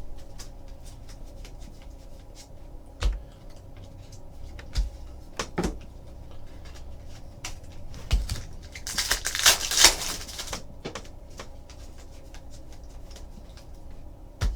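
Trading cards being handled and flipped through on a table: scattered light clicks and taps, a few with a dull knock, and a longer papery rustle about nine seconds in.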